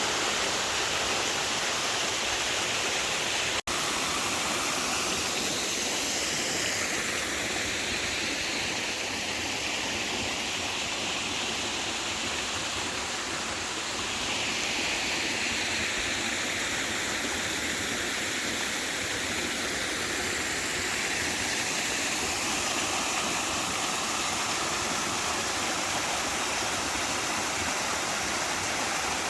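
Steady rushing water, with a shifting tone that drops out for an instant about three and a half seconds in.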